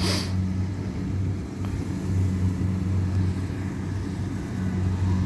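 Kubota DC70 combine harvester's diesel engine running steadily under load while cutting rice, heard from across the field as an even low drone. A short rushing noise sounds right at the start.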